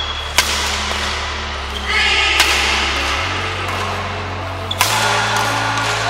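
Badminton racket strings striking a shuttlecock in a rally, three sharp hits about two seconds apart, over background music with steady sustained bass notes.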